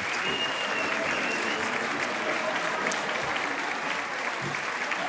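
Steady applause, a dense even clapping that neither builds nor dies away.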